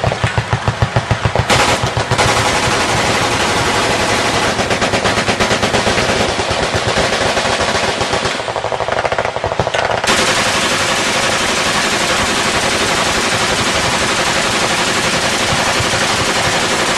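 Machine gun firing fully automatic, a fast, unbroken string of shots.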